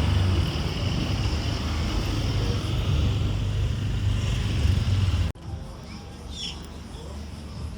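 Steady low rumble of a car driving, heard from inside the cabin, which cuts off abruptly about five seconds in. A quieter stretch with a few faint high chirps follows.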